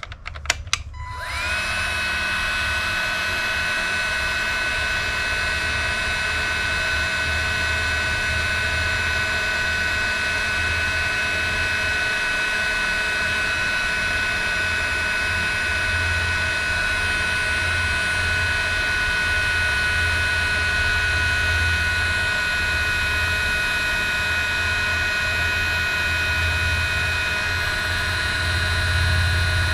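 Cordless heat gun switched on about a second in after a couple of clicks: its fan spins up with a short rising whine, then runs with a steady whine and rushing air while shrinking heat-shrink tubing over crimped wire connections.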